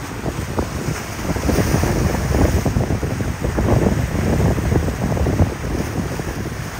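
Wind buffeting the microphone over a continuous wash of waves and surf, with no distinct engine tone.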